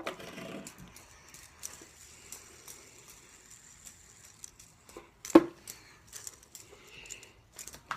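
Fidget spinner spinning with a faint, high, steady whir, and a single sharp click a little over five seconds in.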